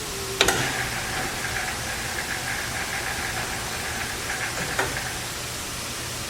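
Hardinge HC 5C chucker lathe running with a steady whir, with a sharp click about half a second in and another about five seconds in.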